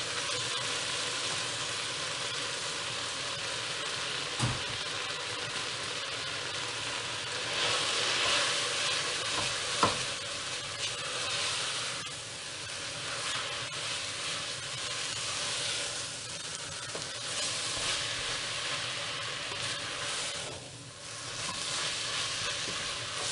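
Food sizzling steadily in hot oil in a pot while it is stirred, with two sharp clicks about four and ten seconds in.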